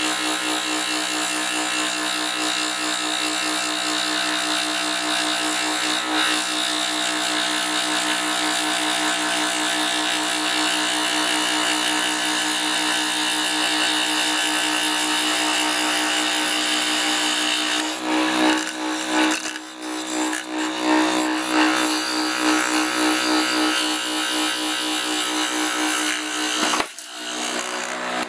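Scroll saw running steadily, its fine reciprocating blade cutting thick Baltic birch plywood. About two-thirds of the way in the sound turns uneven as the blade works through the wood, and it stops near the end.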